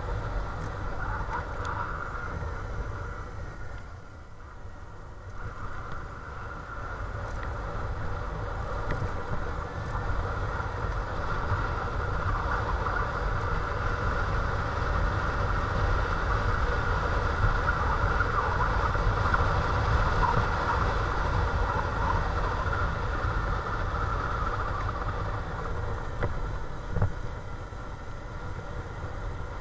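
Motorcycle engine running on the move. It drops off about four seconds in, builds up and holds steady through the middle, then eases near the end, with a brief knock shortly before it finishes.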